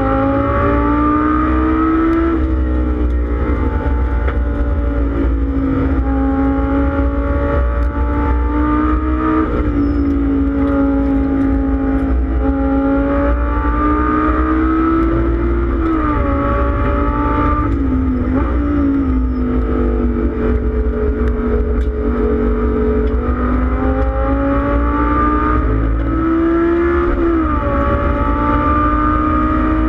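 Lamborghini Gallardo Super Trofeo race car's V10 engine heard from inside the cockpit at racing speed. The revs climb and fall through the gears, with sudden steps at each shift, over a steady low drone of road noise.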